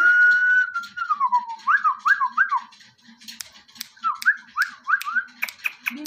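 Someone whistling: one long held note that slides down, then two runs of quick rising chirps. Sharp clicks come in near the end.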